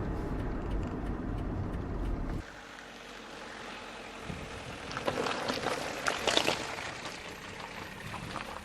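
1988 Citroen BX 19RD's diesel engine and road noise heard from inside the cabin; about two and a half seconds in it cuts abruptly to a quieter outdoor sound with wind and scattered crunching and knocking, the car on a rough track.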